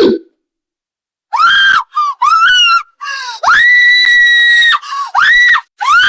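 A person screaming: after about a second of silence, a run of short, shrill, high-pitched screams, with one longer held scream near the middle.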